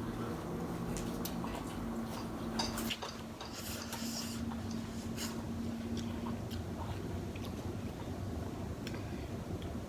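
Close-up eating sounds from a snow crab meal: scattered clicks and crackles of crab shell and utensils, with chewing and mouth noises, busiest a few seconds in. A low steady hum runs underneath until about two-thirds of the way through.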